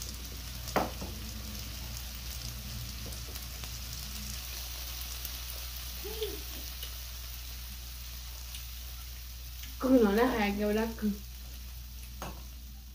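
A steady hiss over a low hum, with a single click about a second in and a brief voice sound about ten seconds in.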